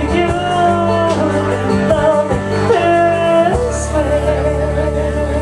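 A song playing, with a sung vocal holding long notes over guitar and a steady bass line.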